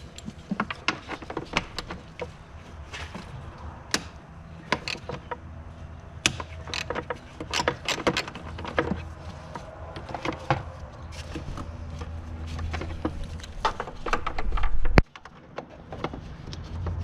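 Hand tools clicking and knocking against metal engine parts while bolts come off, as irregular sharp taps over a steady low hum. The sound swells just before about fifteen seconds in, then cuts off abruptly.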